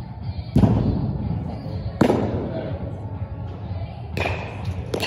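Baseballs smacking into leather gloves: two loud pops about a second and a half apart, then two lighter ones near the end, each echoing in a large hall. Music plays in the background.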